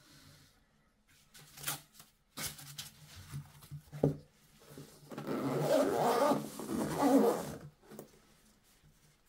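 Gloved hands handling a mini drone and its carry case: a few light clicks and knocks, then about two and a half seconds of continuous rustling and rubbing.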